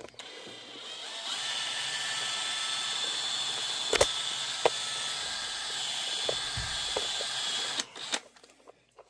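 Power drill running steadily into plexiglass, spinning up over the first second and stopping near the end, with two sharp clicks midway.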